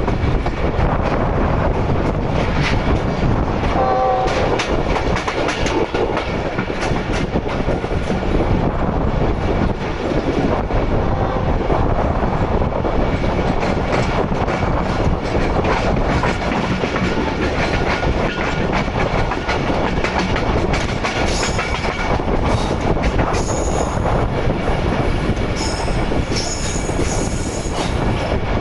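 A passenger train's coaches running on the track, heard from the open door of a moving coach: a steady loud rumble and clatter of wheels over the rails. About two-thirds of the way through, high wheel squeal comes in on and off as the train rounds a curve.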